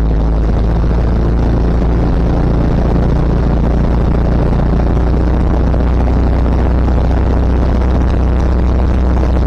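Pegazair floatplane's 150 hp engine and propeller at idle while taxiing on the water, a steady low drone heard from inside the cockpit.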